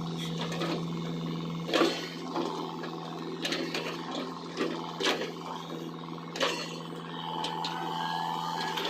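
XCMG mini excavator's diesel engine running steadily under work, with several sharp knocks from the digging at irregular intervals and a higher whine joining in near the end.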